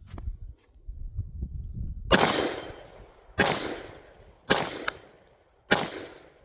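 Great Lakes Firearms AR-15 rifle firing four single shots, a little over a second apart. Each crack echoes and dies away over about a second.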